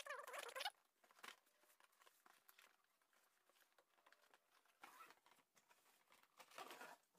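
Soft rustling and scraping of a cardboard box being handled and its lid opened: a short burst at the start, faint scattered rustles and clicks, and soft bursts about five seconds in and near the end, otherwise near silence.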